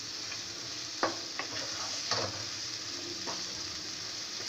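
Chicken karahi sizzling in a karahi over a high gas flame as its yogurt is fried down, with a spatula stirring and knocking against the pan about four times.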